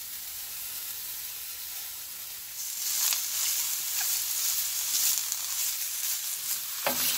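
Baby spinach and chopped shiitake mushrooms sizzling in a hot stainless steel sauté pan, the hiss growing louder about two and a half seconds in as the leaves are turned with a wooden spoon, with a few light taps of the spoon.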